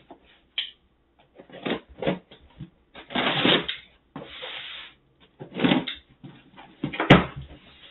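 Packing tape on a cardboard shipping box being slit with a small cutter and the box handled: scratchy scraping and rustling in short, uneven bursts, with one sharp snap near the end.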